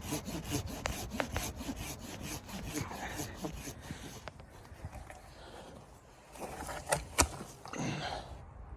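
Rapid rhythmic rasping strokes, about four or five a second, fading out after about four seconds; then two sharp cracks about seven seconds in.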